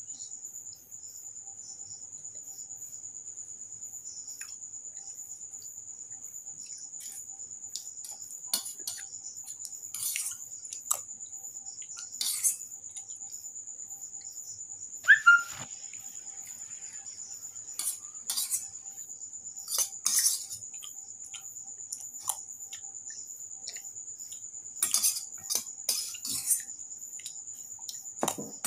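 Metal spoon scraping and clinking against a small stainless steel bowl in short irregular bursts, the loudest a ringing clink about fifteen seconds in. A steady high-pitched whine runs under it.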